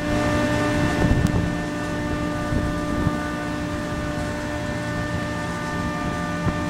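Chiller plant machinery running: a steady mechanical hum with several steady whining tones, and wind buffeting the microphone.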